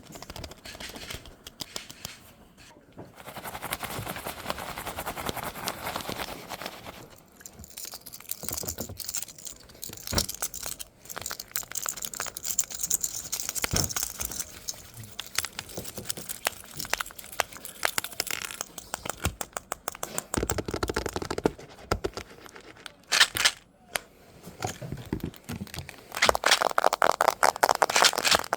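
Close-miked ASMR handling sounds: rapid scratching, crackling and crinkling of objects being rubbed and tapped, in dense runs of fine clicks. They get louder near the end.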